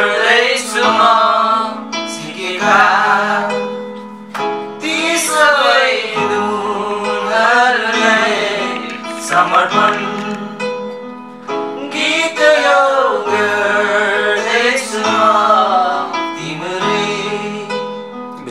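A song: a voice singing a melody in phrases over steady, sustained instrumental accompaniment.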